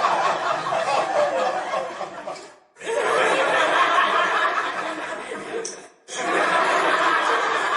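Canned group laughter, a crowd chuckling and laughing in three takes, the first fading out about two and a half seconds in and the others starting abruptly about three and six seconds in.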